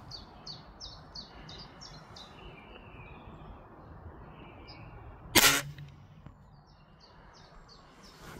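A single sharp shot from a Weihrauch HW99S spring-piston air rifle about five seconds in. Around it a bird sings runs of short, high, repeated chirps, at the start and again near the end.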